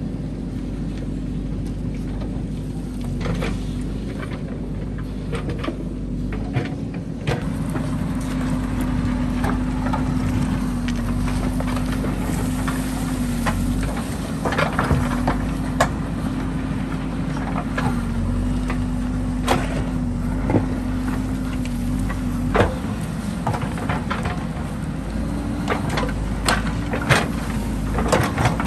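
Diesel engine of a JCB 3DX backhoe loader running steadily under working load, its pitch rising and falling a little. Sharp knocks and clanks come throughout, more often in the second half.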